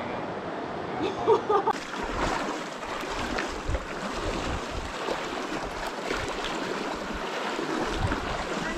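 Rushing river water, sloshing and splashing as someone wades through it at about waist depth, with low gusts of wind on the microphone.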